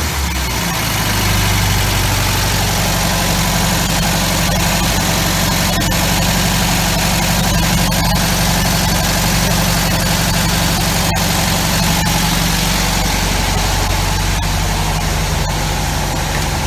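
Old engine idling steadily, its revs settling down within the first second after a rev.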